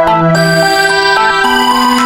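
Instrumental music with held, sustained chords that change about a third of a second in and again about one and a half seconds in.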